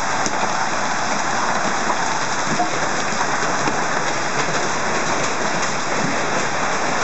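Heavy rain mixed with hail pouring down steadily: a dense, even hiss with scattered small ticks of hailstones striking.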